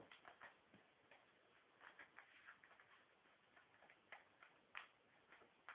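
Faint, irregular crinkles and clicks of a sheet of paper being folded and creased by hand into a paper airplane.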